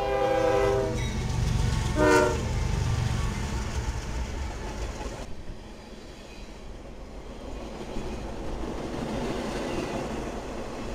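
CSX diesel freight locomotive's horn sounding a chord, a blast of about a second and then a short blast about two seconds in, over the loud rumble of the freight train passing close by. The rumble runs on after the horn, with wheels clacking over the rails and fading a little about halfway through.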